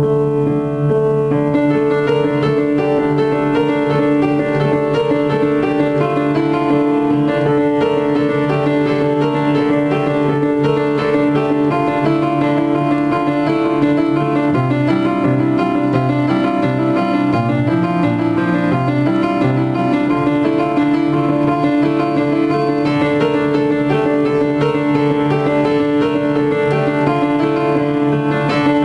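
Solo piano on an upright piano: a steady stream of quick notes over a sustained bass, with the bass line shifting about halfway through.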